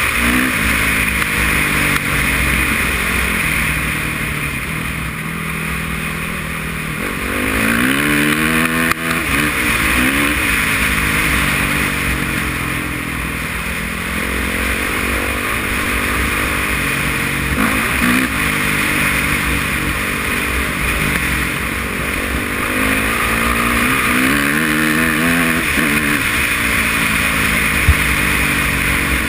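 Honda CRF450R single-cylinder four-stroke dirt bike engine under way, its note climbing and dropping several times as the rider accelerates and eases off, over a steady rush of wind on the microphone.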